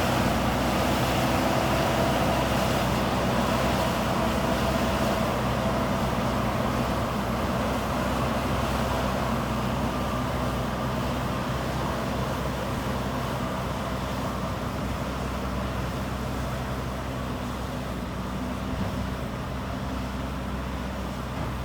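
JCB 3DX Super backhoe loader's diesel engine running steadily, slowly growing quieter over the stretch.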